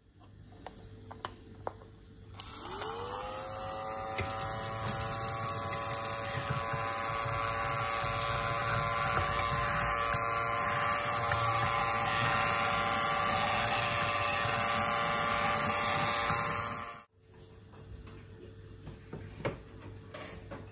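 A small electric motor starts about two seconds in, its whine rising quickly in pitch as it comes up to speed, then runs steadily with a hiss before cutting off abruptly near the end. A few light clicks come before it starts.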